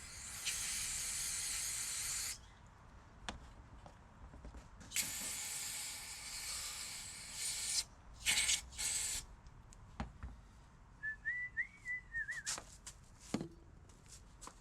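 Aerosol can of carburetor cleaner spraying in hissing bursts: two long sprays of about two and three seconds, then two short spurts, with a man whistling a few notes about two-thirds of the way through and scattered light clicks and taps.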